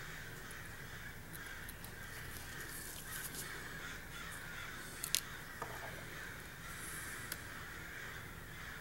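A few small, sharp clicks of steel tweezers touching the parts of an Omega 600-calibre watch movement, the loudest about five seconds in, over a steady background hiss.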